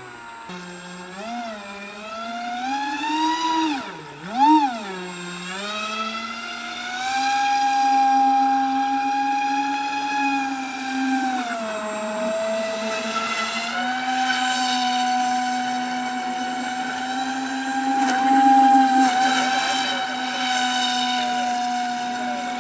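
Electric motor spinning the air propeller of a homemade RC airboat, a high whine. Its pitch rises and falls several times in the first few seconds as the throttle is worked, then holds steady at speed, dipping once briefly.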